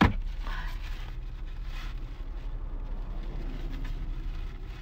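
Low steady hum of a car idling inside the cabin at a standstill, with a sharp click at the very start and some soft rustling in the first couple of seconds.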